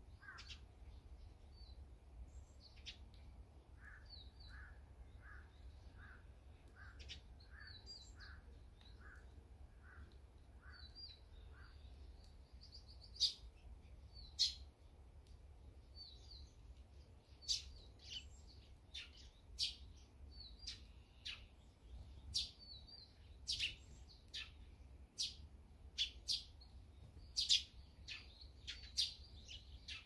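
Small songbirds calling around a seed feeder. High chirps run throughout. In the first half comes a run of about a dozen evenly spaced lower notes, a little over one a second. From near the middle on, sharper, louder chirps come thick and fast.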